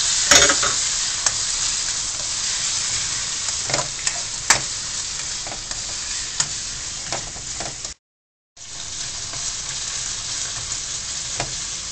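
Chopped garlic sizzling in hot oil in a wok while it is stir-fried with a spatula, with a few sharp taps and scrapes of the spatula against the pan. It is frying until fragrant and turning golden. The hiss is loudest at the start, eases slightly, and cuts out completely for about half a second about two-thirds of the way in.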